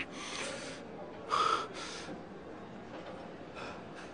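A person breathing hard in a few sharp, breathy gasps through nose and mouth, the loudest about a second and a half in.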